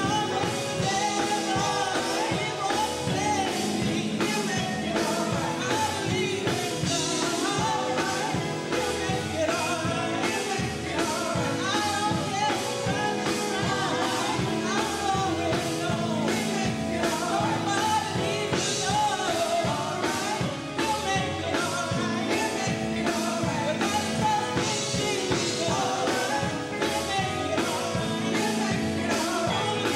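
Live gospel song: women's voices singing with a band of drum kit and electric guitars, over a steady beat.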